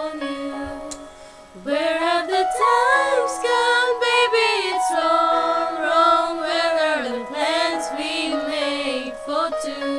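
Music: a singer holding long, bending sung notes without clear words over steady instrumental backing, coming in about one and a half seconds in after a brief quieter moment.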